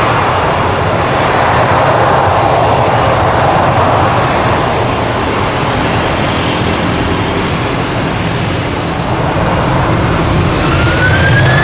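Jet engines of a Boeing 737 airliner at take-off thrust as it rolls past on the runway: a loud, steady rush with a whine that falls in pitch as it passes. Near the end a second whine rises in pitch.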